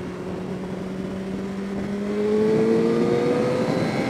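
Honda CBR600RR's inline-four engine pulling under acceleration on the road. Its note rises slowly and grows louder from about two seconds in, then falls back near the end.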